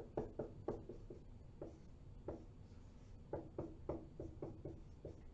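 Handwriting: a series of short pen strokes and taps, in a quick run at the start and another a little past the middle, over a faint low room hum.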